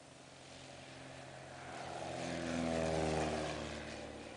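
Single-engine Piper light aircraft at full takeoff power flying past just after lift-off: the propeller and engine drone grows louder, peaks about three seconds in, and drops in pitch as the plane goes by.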